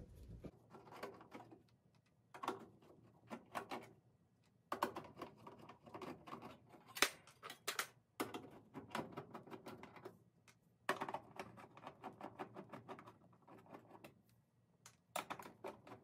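Quarter-inch hex screws being backed out of a window air conditioner's sheet-metal panel with a hand nut driver: faint spells of rapid clicking and rasping, several in a row with short pauses between, and one sharper click about halfway through.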